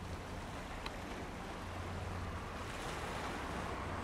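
Bombardier CL-215T/415 water bomber's turboprop engines droning steadily as it flies past at low altitude, a low hum under a broad rushing sound that grows a little louder near the end.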